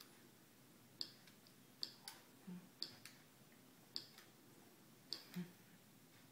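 Keys of a Lightwriter communication aid being pressed one at a time with a single finger: slow, separate plastic key clicks, about one keystroke a second, some coming as a quick double click.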